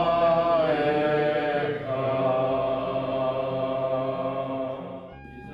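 A man's voice chanting a Jewish prayer in slow, drawn-out notes, fading away about five seconds in.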